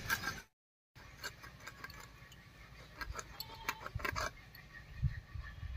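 Knife cutting through a chitol (clown knifefish): faint scraping and small crunching clicks as the blade works through skin and bone, busiest about three to four seconds in.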